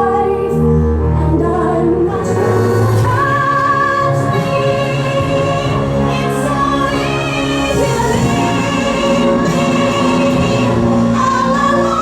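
Show-tune music with singing: a female voice holds long notes with a wide vibrato over a full orchestral backing.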